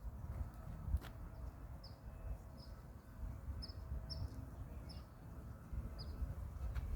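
A bird chirping repeatedly in short, high, down-slurred notes over a steady low rumble, with a single click about a second in.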